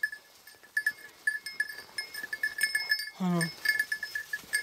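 Small collar bell on a hunting pointer tinkling in quick, irregular jingles as the dog steps through grass. A short voice call comes about three seconds in.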